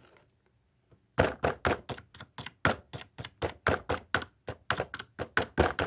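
A pointed tool stabbed again and again into the seal of a plastic activator bottle: a fast run of sharp knocks, about four or five a second, starting about a second in.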